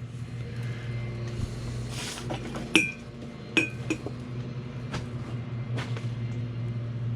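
Hard objects clinking and knocking together as things are rummaged through: about six sharp clinks, two of them near the middle ringing briefly like glass or china. A steady low hum runs underneath.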